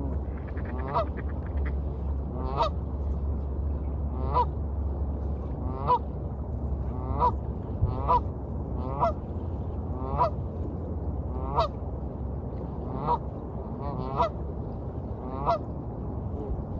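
A duck quacking repeatedly, about a dozen short, nasal calls roughly one every second or so, over a steady low wash of waves.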